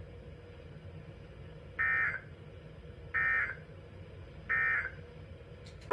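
Three short, identical bursts of Emergency Alert System digital data tones, about a second and a half apart: the SAME end-of-message code sent three times to close a weather-radio severe thunderstorm warning.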